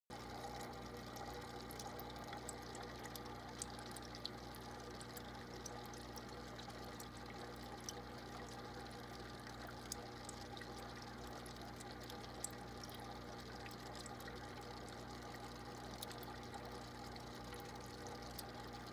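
Aquarium filter running: a faint, steady hum with water pouring and trickling, and scattered small clicks.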